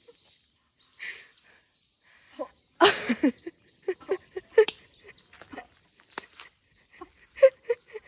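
A woman bumping her back against a tree trunk to relieve her anger, with short grunts ('heong') at the bumps. The loudest thud comes about three seconds in, with more short ones after. A steady, high insect chirring runs underneath.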